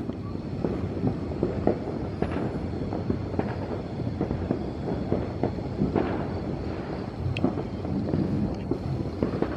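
Fireworks going off here and there: many small, irregular pops and crackles over a steady low background noise.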